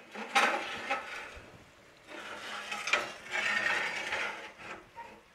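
Metal cookware scraping and clattering on a gas stove's iron burner grate as a griddle (tawa) and the daal pot are set down on it for dum. It comes in two bouts, with a sharp clank about three seconds in.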